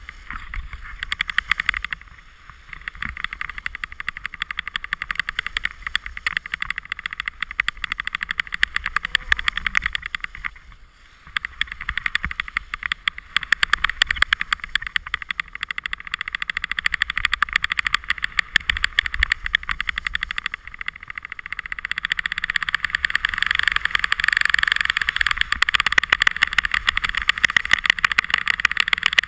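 Skis sliding and scraping over a groomed piste on a downhill run, a continuous gritty hiss with a low wind rumble on the camera microphone. It eases off briefly twice, about two and eleven seconds in, and grows louder over the last few seconds.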